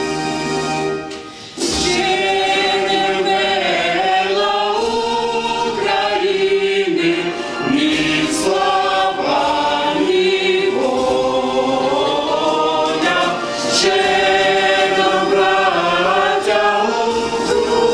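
A small mixed choir of men's and women's voices singing together, with long held notes; the singing sets in about a second and a half in, after a brief pause.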